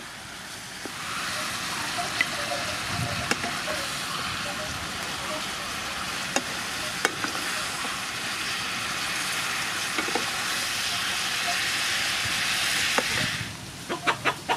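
Stir-fry of sea snail and vegetables sizzling steadily in a frying pan, with occasional clicks of a wooden spatula against the pan. The sizzle stops shortly before the end, followed by a quick run of clicks.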